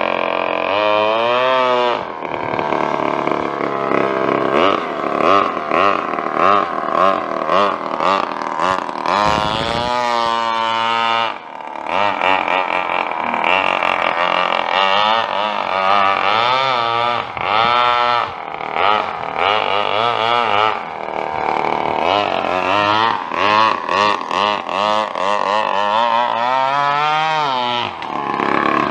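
Two-stroke lawn-mower engine of a radio-controlled Thai long-tail boat running at high revs, its pitch rising and falling again and again as it is revved up and backed off.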